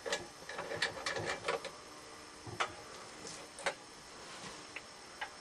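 Small metal clicks and clinks of a wrench working the carburetor mounting bolts loose on a small Briggs & Stratton engine, several in quick succession over the first second and a half, then a few single clicks.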